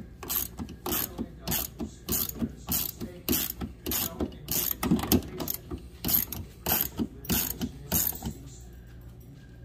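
Hand ratchet with a socket clicking as it turns the hinge bolt through a refrigerator door's plastic closing cam, in a steady rhythm of about two strokes a second that stops about 8 seconds in.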